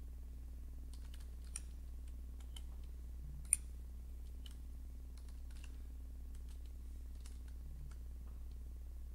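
Computer keyboard keys being tapped in short, irregular clicks as numbers are typed in, with one sharper click about three and a half seconds in. A steady low hum runs underneath.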